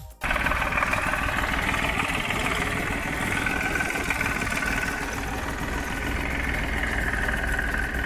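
Vintage farm tractor engine running steadily, loud and close.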